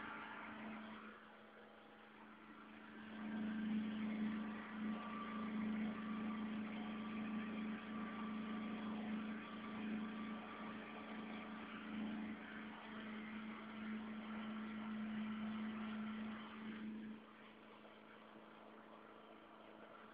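Greencut 3.5 kW three-phase petrol generator running steadily with an even, pitched hum; the sound grows louder a few seconds in and drops sharply about 17 seconds in.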